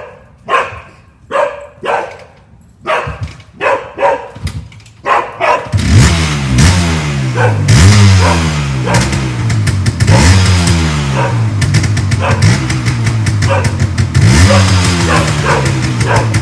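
A dog barks about ten times in quick succession. About six seconds in, a 1979 Yamaha DT250's two-stroke single-cylinder engine takes over, running loudly and revved again and again so that its pitch rises and falls. The carbon has just been burned out of its exhaust.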